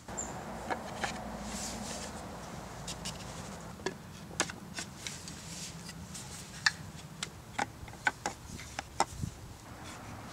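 Wooden table parts knocking and clicking against each other as they are picked up and slotted together by hand: a string of short, sharp clicks, most of them between about four and nine seconds in.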